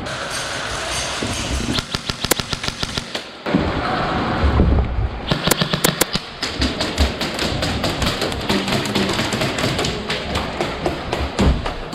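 Airsoft guns firing in rapid bursts: fast strings of sharp clicks and taps, with a break in the middle.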